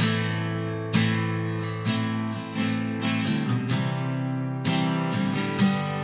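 Background music: acoustic guitar strumming slow chords, a new chord sounding every second or so.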